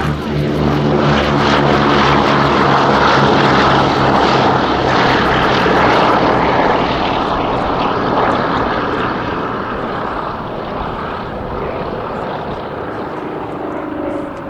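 Radial-engined World War II propeller warbird flying past: a steady engine drone swells to its loudest a couple of seconds in, then slowly fades away.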